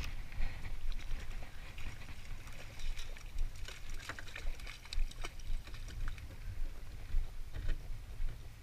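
Wind rumbling and buffeting on the microphone over water lapping and light splashing around a small boat, with scattered small clicks and ticks.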